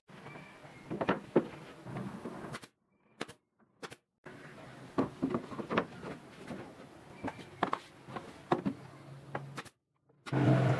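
Wooden boards of a frame being handled and fitted: a run of light knocks and taps on wood, with a louder short burst near the end.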